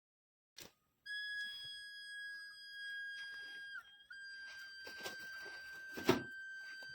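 Homemade rain-detector alarm's buzzer sounding one steady, high, shrill tone. It cuts out briefly near the middle and comes back, with a click just before it starts and a loud knock near the end.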